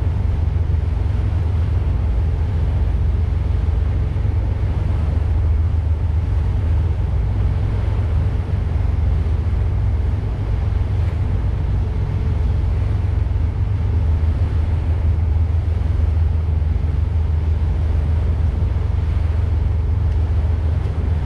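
Engines of a 2000 Ilver 34 Thesi motor cruiser running steadily under way, a continuous low drone, with wind noise over the microphone.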